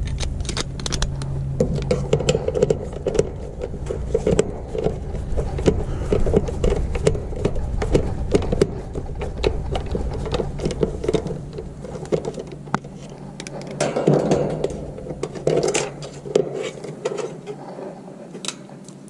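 Handling noises: clicks, small metallic rattles and scrapes as a screwdriver pries the spade-terminal wires off an air conditioner's run capacitor and the capacitor is handled. A low hum underneath fades out about two-thirds of the way through.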